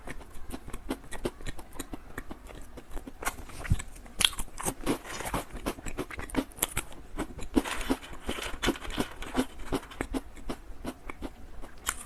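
Close-up crunching and chewing of a small cheese-flavoured biscuit, many quick crisp crunches one after another.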